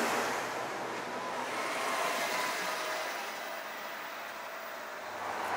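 Street traffic noise: a passing vehicle's tyre and engine noise fading away over the first few seconds, leaving a lower steady traffic hum.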